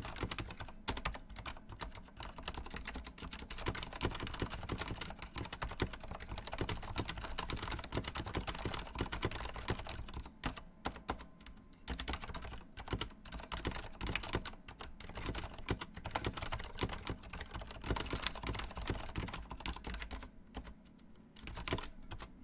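Typing on a Corsair Strafe mechanical keyboard with Cherry MX Silent switches, a dense, quick patter of key clicks with short pauses about ten seconds in and near the end.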